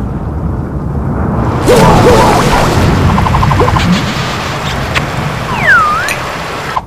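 Cartoon sound effects: a low rumble that swells into a loud crashing roar about two seconds in, with short squeaks over it. A quick run of ticks follows, and near the end a whistle dips and rises again.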